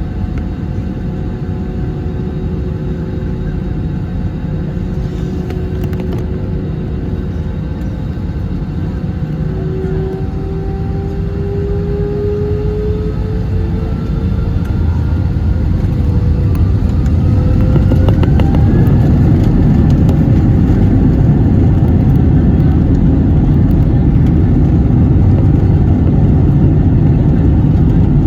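Airbus A321's twin IAE V2500 turbofans spooling up for takeoff: several whining tones rise in pitch together while the engine noise builds, then hold at a loud, steady takeoff-thrust level from about two-thirds of the way in.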